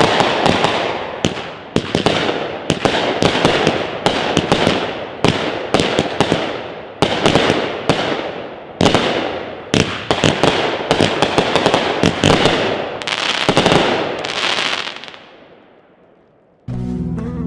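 Raccoon Fireworks Breakthrough 200-gram angled cake firing: sharp shots and breaks about every half second over a dense crackling hiss, fading out about fifteen seconds in. Background music starts just before the end.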